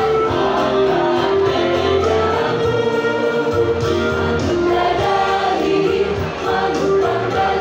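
A mixed choir of boys' and girls' voices singing together, accompanied by electronic keyboards with sustained low bass notes.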